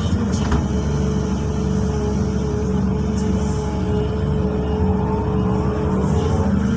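XCMG XE215C excavator's diesel engine running steadily under working load, heard from inside the cab as the boom and bucket dig and swing, with a steady whine over the low engine hum.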